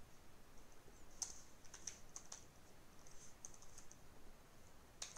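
Faint computer keyboard typing: a scattering of irregular keystrokes.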